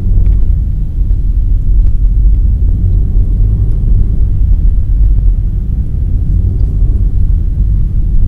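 Steady low rumble of road and wind noise inside a moving car's cabin.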